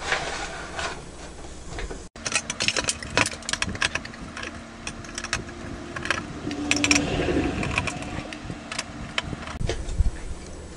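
Screwdriver working screws out of a computer power supply's metal housing: irregular rapid clicks and scrapes of the tool and the turning screws, with screws and parts clinking against the case.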